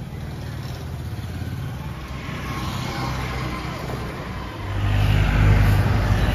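Motorbikes and scooters passing on a street, with a steady low engine hum and one vehicle swelling past midway. Near the end the traffic suddenly gets louder and closer.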